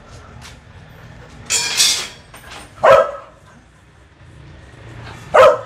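Penned dogs barking: two short, sharp barks, about three seconds in and again near the end, after a harsher noisy burst about a second and a half in.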